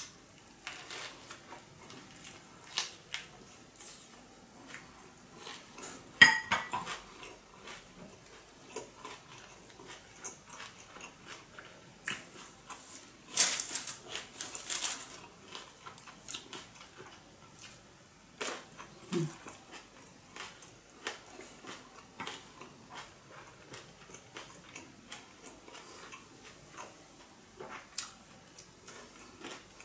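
Close-up eating sounds: wet chewing, lip smacks and mouth clicks from a soft rice-paper spring roll filled with steamed fish and fresh herbs. A few louder clinks and rustles stand out, the loudest about six seconds in and again around thirteen to fifteen seconds.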